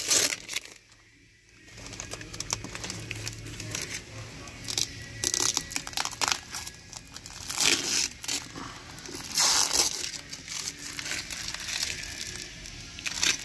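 Protective plastic film being peeled off a new car's interior trim and crumpled by hand, in irregular bursts of crinkling and ripping with short pauses between pulls.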